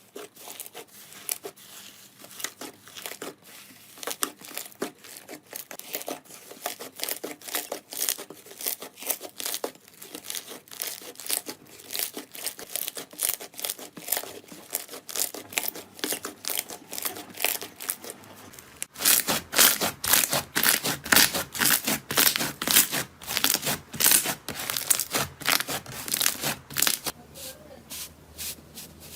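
Slime being squeezed and worked, giving a steady stream of rapid sticky crackles and pops. About 19 seconds in, a cut brings a louder, denser run of crackling.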